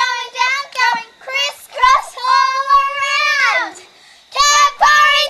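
Young girls singing a hand-clapping chant in high voices. A long held note about halfway through bends downward and stops, then a short run of quick sung words comes near the end.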